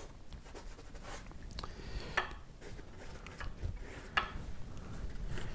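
Faint scrapes and dabs of a paintbrush and hand working acrylic paint on a stretched canvas, with a few short scratchy clicks as paint is wiped back.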